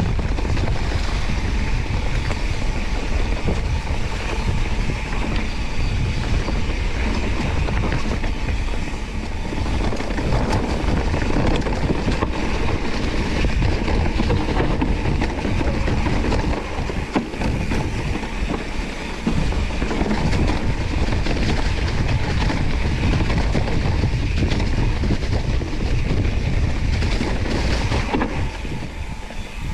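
Mountain bike being ridden over a rough trail: tyres rolling on dirt and rock, with the bike rattling over the bumps and a steady wind rumble on the microphone.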